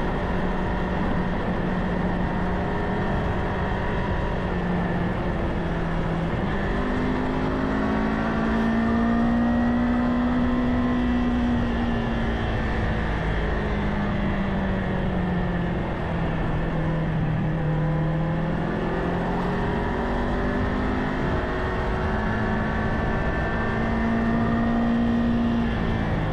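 Kawasaki Ninja 500's parallel-twin engine running under way while riding, its pitch rising and falling gently with speed, over a steady rush of wind.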